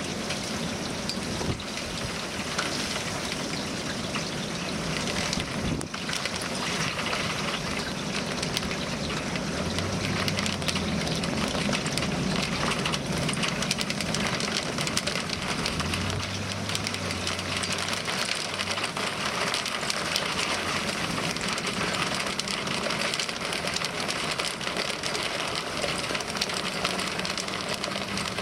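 Steady hiss of rain and wind around the recording position, with a faint low hum that comes and goes twice.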